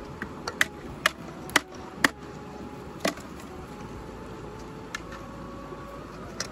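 A blade chopping into an upright section of bamboo: sharp strikes, about five in quick succession in the first two seconds, then three more spaced a second or two apart.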